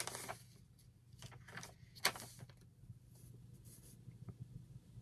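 Quiet handling of metal garment-rack parts: short rustles and scrapes, with one sharp click about two seconds in, over a faint steady low hum.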